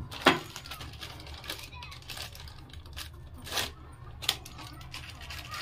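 A handful of sharp, unevenly spaced plastic clicks and taps, the loudest about a quarter second in, from hands working the clear plastic cover of a wall-mounted smart meter enclosure, over a low steady hum.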